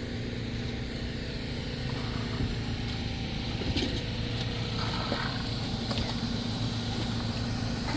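An engine running steadily at a low, even drone, with a few faint clicks and knocks over it.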